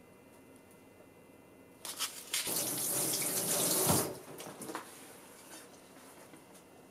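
Kitchen tap running for about two seconds, a steady rush of water that is shut off abruptly, followed by a few light knocks.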